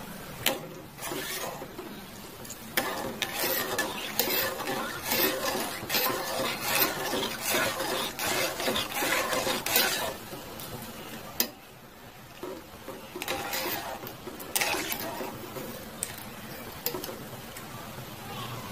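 A steel spoon stirring soap pieces into water in an aluminium pot, clinking and scraping irregularly against the pot. The stirring eases off for a moment a little past the middle.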